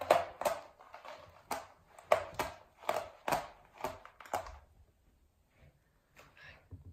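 A run of light, sharp taps or knocks, about two a second, for some four seconds, then only a few faint soft sounds.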